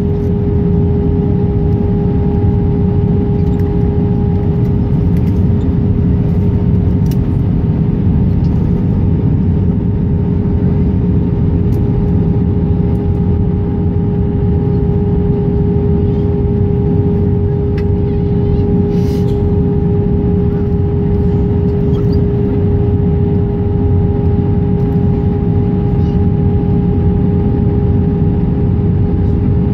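Steady cabin noise inside an Airbus A319-132 on descent: a loud, even rush of airflow and engine noise from its IAE V2500 turbofans, with a steady hum running through it.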